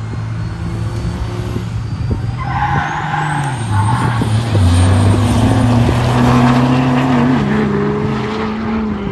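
Turbo-diesel pickup engine pulling hard under load, a turbocharger whistle rising in pitch as it spools up. The run gets louder to a peak about halfway through, then eases off.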